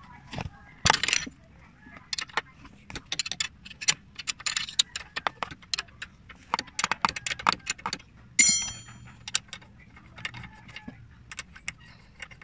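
Steel wrench clicking and clinking on the air-conditioning compressor's mounting bolts as they are loosened, in a string of quick sharp metallic clicks. About eight seconds in, one louder metal clink rings briefly.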